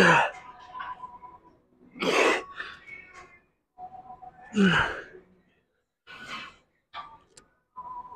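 A man's hard exhalations and grunts of effort during a weightlifting set, one every two seconds or so; the loudest comes right at the start.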